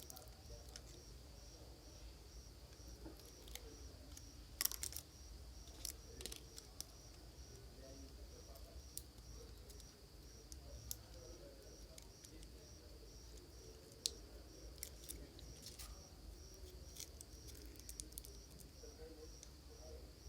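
Faint scattered clicks and taps of small tools and parts being handled, over a steady high insect chirp, likely a cricket, repeating about two to three times a second.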